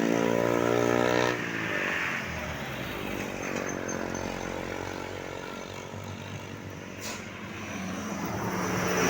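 Road traffic passing close by: a vehicle's engine note holds steady, then drops in pitch as it goes past about a second and a half in. It fades to a quieter engine hum, and another vehicle approaches near the end.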